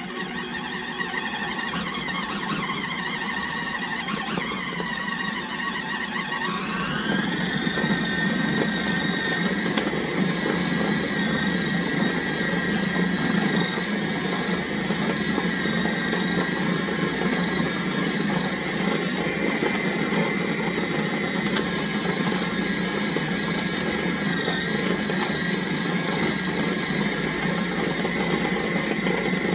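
KitchenAid 13-cup food processor motor running continuously, chopping and mixing pie crust dough. Its whine rises in pitch about six to seven seconds in, then holds steady.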